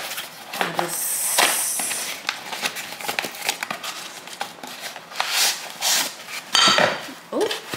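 A small cardboard box being opened and unpacked by hand: cardboard flaps and paper and plastic wrapping rustling and crinkling, with small knocks. There is a longer scratchy rasp about a second in.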